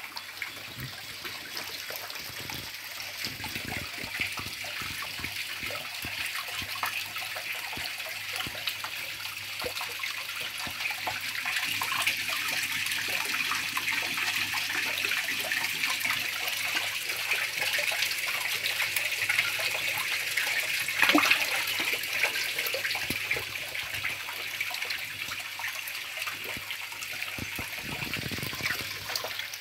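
Koi pond water splashing and trickling steadily as the fish crowd and churn at the surface, with a louder splash about 21 seconds in.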